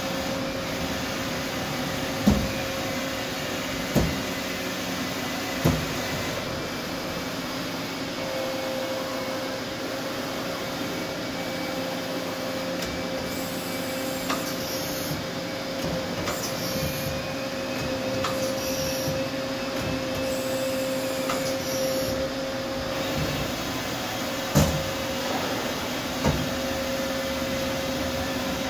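Doosan Puma 500 CNC turning center running with its spindle turning: a steady mechanical hum with two held tones. Three sharp clunks come in the first six seconds and two more near the end, and a faint whine rises and falls midway as the turret moves along the bed.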